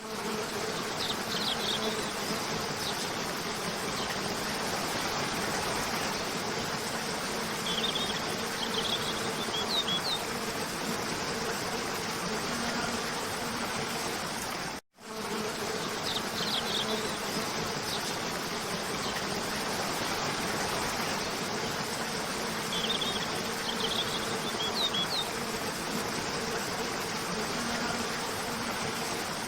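Steady rushing of a cascading waterfall, with a few short bird chirps over it. The sound cuts out for an instant about halfway, and the same stretch then repeats as a loop.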